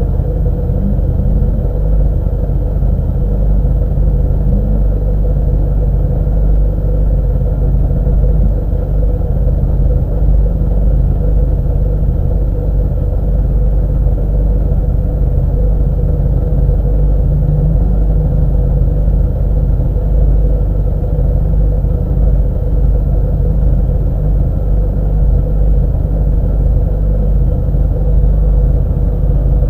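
Lada race car's 1.6-litre four-cylinder engine idling steadily in neutral, heard from inside the cockpit.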